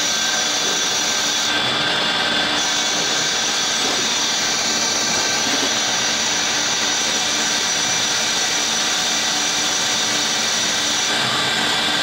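CNC lathe running while machining a metal part: a steady machine whine, with several steady high tones over an even hiss.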